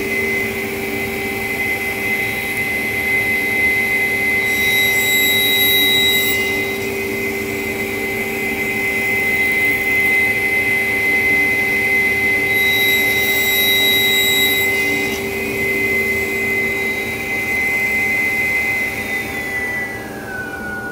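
Table saw running steadily with a high blade whine while a Baltic birch ply blank is trimmed against a pattern jig. Twice the blade cuts, each time briefly adding a higher ringing. Near the end the saw is switched off and its pitch falls as it spins down.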